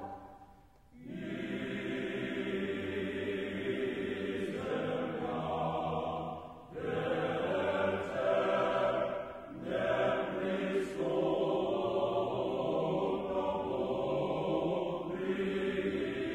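A choir chanting slowly in harmony, with held notes and short breaths between phrases. It resumes after a brief pause about a second in.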